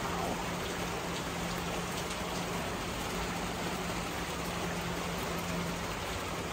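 Steady rain falling onto a wet concrete patio, an even hiss that does not let up. A faint, steady low hum runs beneath it.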